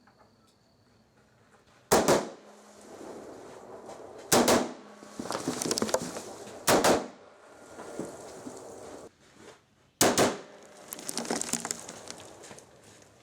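Four rifle shots from a DPMS LR-308 in .308 Winchester, fired a couple of seconds apart, each a sharp crack followed by a ringing echo.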